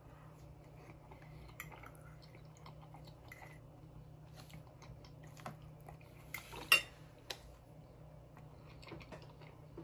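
Metal fork clinking and scraping on a ceramic plate, with faint chewing between the clicks. The sharpest clink of the fork against the plate comes about two-thirds of the way through.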